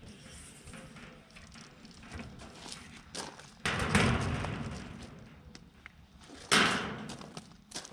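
Two loud thumps, one near four seconds in and one about two and a half seconds later, each dying away slowly, among lighter knocks and clatter of building materials being handled.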